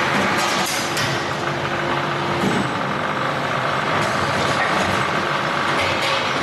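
Aluminium rotor die-casting machine running, with steady industrial machinery noise, short pneumatic hisses, and a steady hum that stops about two and a half seconds in.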